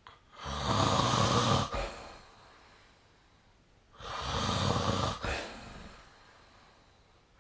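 A sleeping person snoring: two loud snores about three and a half seconds apart, each followed by a softer breath.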